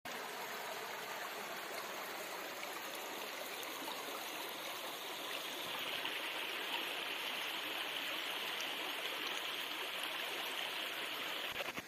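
Shallow stream running over rocks, a steady rush of water that turns a little brighter and hissier about halfway through. A couple of brief knocks come just before it cuts off at the end.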